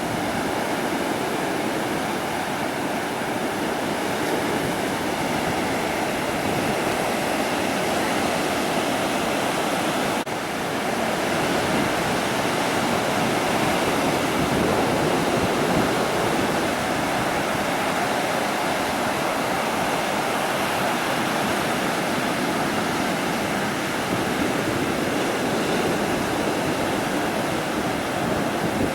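Ocean surf breaking and washing on a beach: a continuous rush of wave noise that swells slightly and eases without pause.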